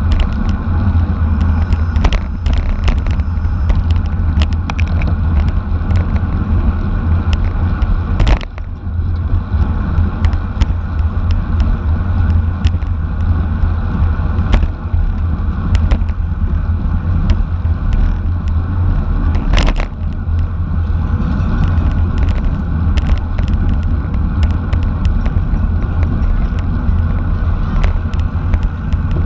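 Steady heavy wind rumble and road noise on the microphone of a camera travelling with a bicycle road race, with scattered sharp clicks and knocks.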